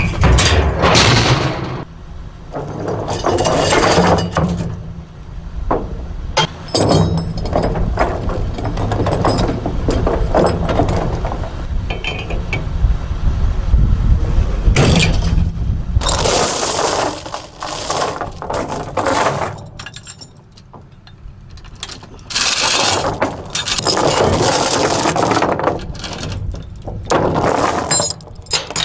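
Heavy metal clanking and rattling in repeated bursts, over a diesel engine idling that cuts off about halfway through.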